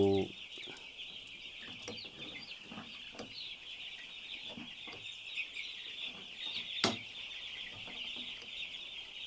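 A flock of week-old broiler chicks peeping steadily, many high calls overlapping, with one sharp click just before the end.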